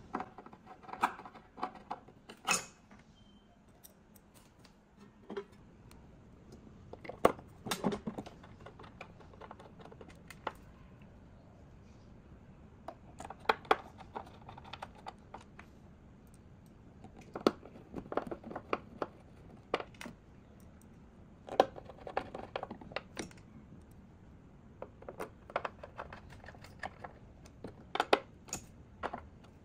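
Small screws being fitted and tightened with a screwdriver: scattered light metallic clicks and ticks, in short clusters with pauses between.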